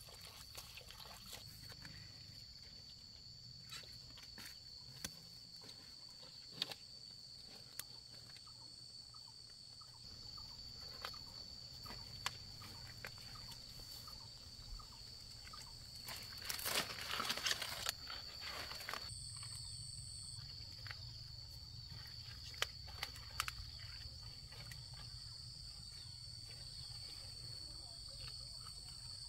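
A steady, high insect drone, joined about two-thirds of the way through by a second, higher one. Scattered snaps and a louder rustle of stiff pineapple leaves being pushed aside and handled just past the middle.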